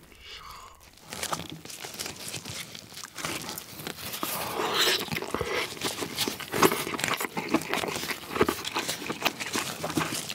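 Cooked king crab shell being cracked and broken apart by gloved hands: a dense, irregular run of snapping and crackling clicks as the shell pieces break off.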